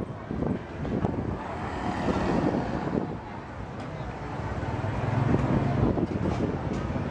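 Street traffic noise of motorbikes and cars, with a steady engine hum growing louder for a moment about five seconds in, and wind buffeting the microphone.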